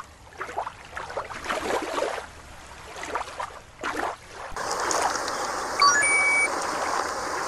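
Irregular bursts of rushing noise for about the first four seconds, then a shallow stream trickling over stones, with a quick rising run of electronic beeps about six seconds in.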